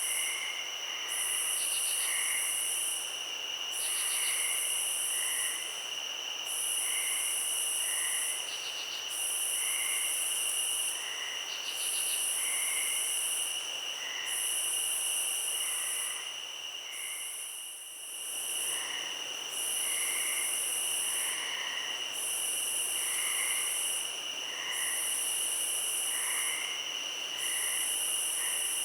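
Night insect chorus: a loud, very high buzzing that pulses on and off about every two seconds over a steady high-pitched trill, with short chirps repeating underneath. Everything drops out briefly about two-thirds of the way through.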